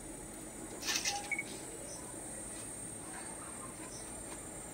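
Insects, likely crickets, making a steady high-pitched drone. About a second in comes a brief clatter of small clicks.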